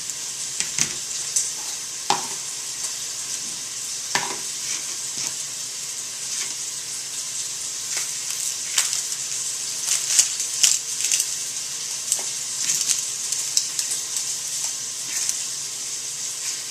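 Sausage frying in a pot over high heat, a steady sizzle with scattered sharp clicks through it.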